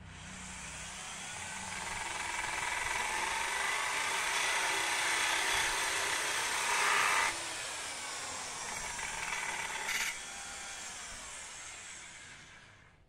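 Electric hand drill fitted with an abrasive cut-off disc, grinding through an iron bracket. A high grinding whine whose pitch wavers as the disc bites builds up over the first few seconds, drops off sharply about seven seconds in, and fades out near the end.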